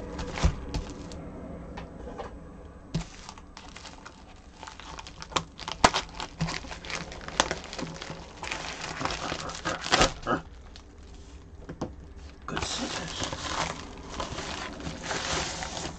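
Plastic USPS Priority Mail mailer being handled and opened: crinkling and rustling with many scattered sharp crackles, and a denser, louder stretch of rustling near the end.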